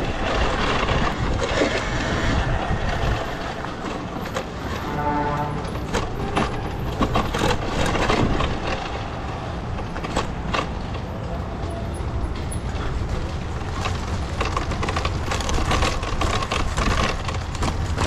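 Talaria electric dirt bike ridden over a rough dirt trail: tyres crunching over dirt and dry leaves, with many short knocks and rattles from the bike over bumps and a steady low rumble of wind on the microphone.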